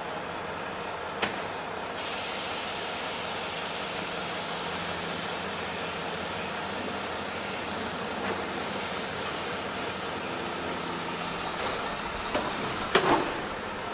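Heavy rain pouring in a thunderstorm downpour: a steady hiss. There is a sharp click about a second in and a few knocks near the end.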